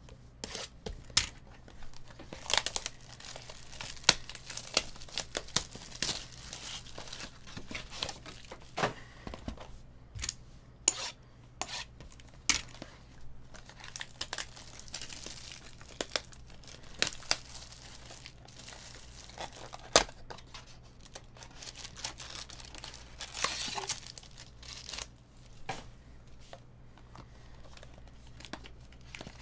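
Plastic shrink wrap on a sealed Topps Finest baseball card box being slit with a utility knife and torn off, crinkling in bursts. Sharp clicks and taps come as the box and its packs are handled.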